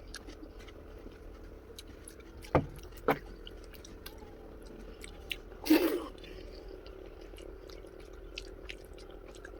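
A person chewing a mouthful of egg curry and rice close to the microphone, with small wet mouth clicks. There are two sharp knocks about two and a half and three seconds in, and a louder noisy burst about six seconds in.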